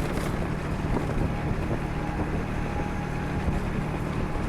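A motor vehicle cruising at speed: a steady engine hum under road noise, with wind rushing over the microphone.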